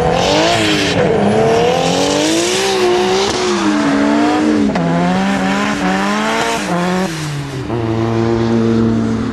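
Drift car engine revved hard, its pitch climbing and dropping again and again, while the tyres squeal through a sideways slide for the first few seconds. Near the end the engine settles to a steady idle.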